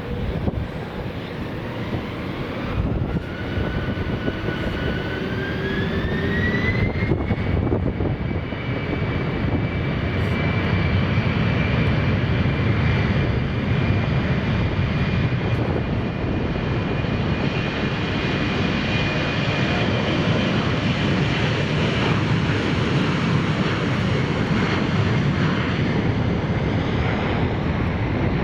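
Jet airliner's engines spooling up: a whine rises over several seconds, then holds steady over a loud, steady engine roar.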